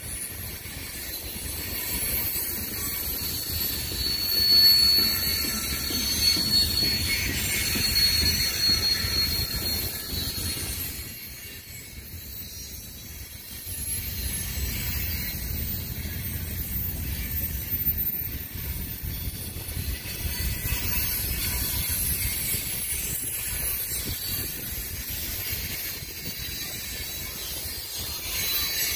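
CSX freight train's cars rolling past, wheels rumbling and clattering on the rails, with a thin high wheel squeal for about the first ten seconds. The noise eases briefly a little before halfway, then picks up again.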